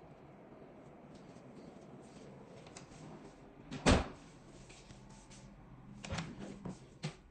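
A few knocks and thuds in a room: one loud knock about four seconds in, then a cluster of smaller knocks near the end, over a low steady background.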